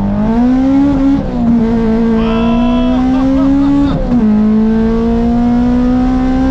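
Honda K24 four-cylinder with individual throttle bodies under hard acceleration, heard from inside the cabin. The engine note climbs steadily, drops sharply at an upshift about a second in and again about four seconds in, then climbs again after each shift.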